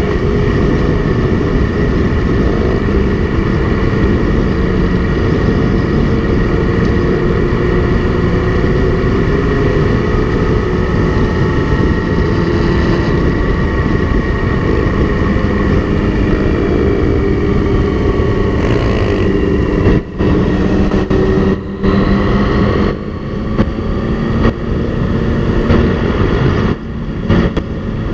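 Motorcycle engine running steadily at road speed with heavy wind rush on the microphone, among a group of other motorcycles. Several sharp, brief dips in loudness come in the last third.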